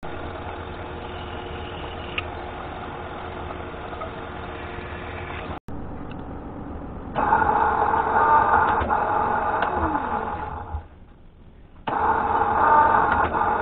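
Vertical milling machine's spindle running while drilling a hole in a metal part clamped in a vise. It starts steady, then gets louder with a steady whine once the drill is cutting, dips briefly near the end and comes back loud as cutting resumes.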